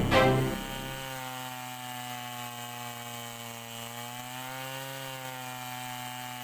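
Large two-stroke chainsaw, a home-built Stihl 070 copy, running at steady high revs while cutting wood, its pitch sagging a little midway and picking up again.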